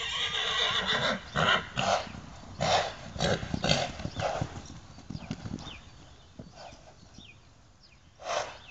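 Trakehner mare galloping and bucking loose on sand: irregular thudding hoofbeats with loud snorting blows, most of them in the first half, then thinning out, with one last blow near the end.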